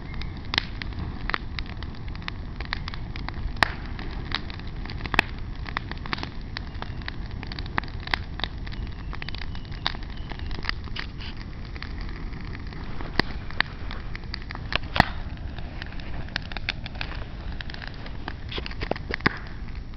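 A dog nosing through long grass and undergrowth: irregular crackling and sharp clicks, a few louder than the rest, over a steady low rumble.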